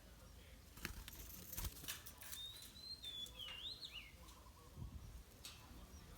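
A bird whistling a short phrase of rising and falling gliding notes, after a few sharp knocks.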